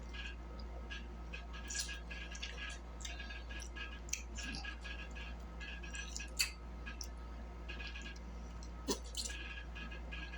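Eating sounds: chewing with small clicks and crackles as food is handled, over a steady low hum. A few sharper clicks stand out, about four, six and nine seconds in.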